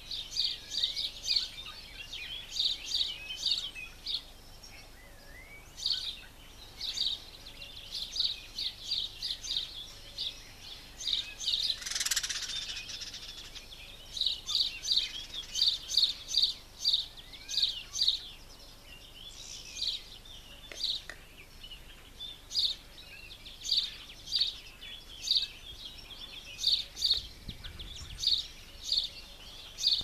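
Small birds chirping in quick runs of short, high notes, over and over. A brief rushing noise comes about twelve seconds in.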